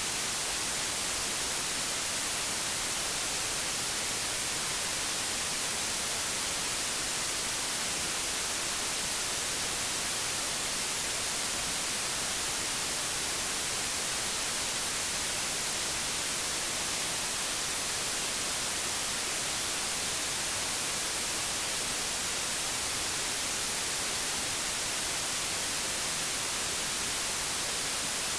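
Old analogue television static: a steady, unbroken hiss, strongest in the highs.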